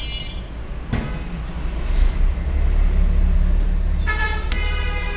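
Low engine rumble of a passing road vehicle, swelling in the middle. A horn starts sounding about four seconds in and holds steady. A single sharp click comes about a second in.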